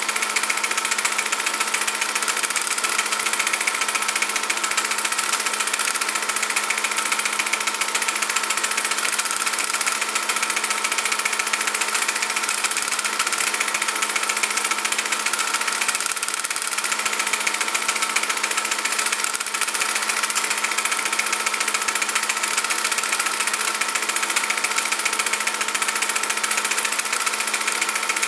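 Steady mechanical running noise: an even hiss with a constant low hum and a few fixed tones, unchanging throughout.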